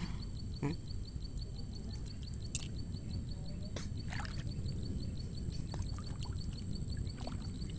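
Quiet outdoor background at a lake: a steady low rumble with a faint, steady high-pitched tone and a few faint small ticks and taps.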